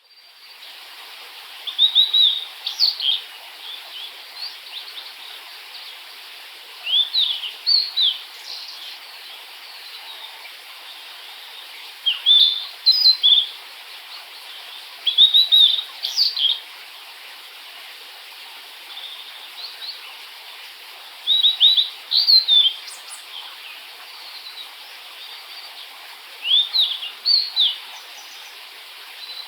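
Blue-and-white flycatcher singing: six short phrases of quick rising and falling whistled notes, a few seconds apart, over a steady background hiss.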